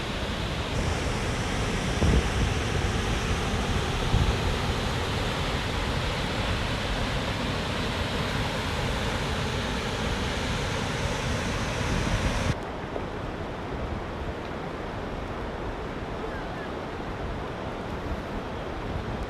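Steady rush of water pouring over a small river waterfall, with wind buffeting the microphone in a few low thumps. About twelve seconds in the sound cuts abruptly to a quieter, duller steady rush.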